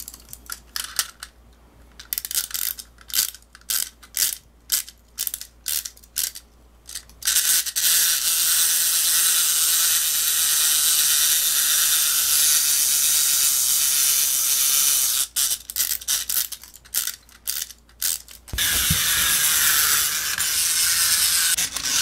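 Plastic gear mechanism of an Anpanman toy road roller: a run of separate ratcheting clicks, then a steady whirring gear rattle for several seconds. The same pattern repeats, with clicks again near the three-quarter mark and the whirring returning for the last few seconds.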